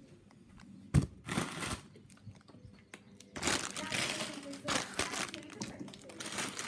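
Plastic packaging crinkling and rustling as it is handled, most densely over the second half. A single sharp knock about a second in.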